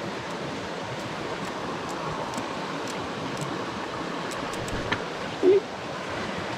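Steady rush of river water. About five and a half seconds in, a brief, louder pitched sound cuts through it.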